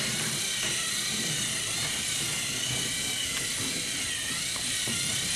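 Small electric motor of a battery-powered toy train engine whirring steadily, with a faint wavering whine.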